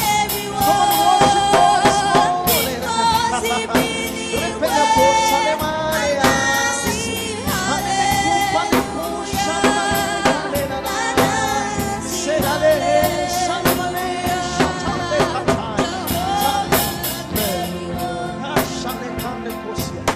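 Gospel worship music: a singer's voice carried over a band, with a drum kit keeping a steady beat.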